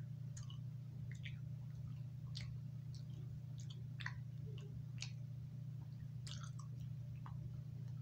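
A person chewing gum, with irregular small wet smacking clicks of the mouth, over a steady low hum.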